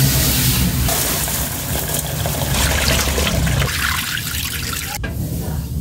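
Tap water running into a steel bowl of white grains being rinsed by hand at a concrete sink, over a steady low hum; the water sound stops abruptly near the end.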